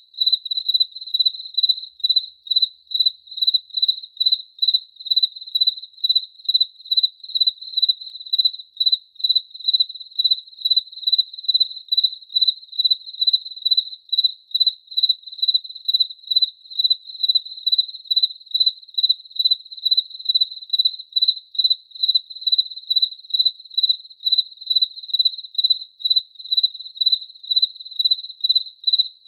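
A cricket chirping steadily: a high-pitched chirp repeated at an even pace, about twice a second.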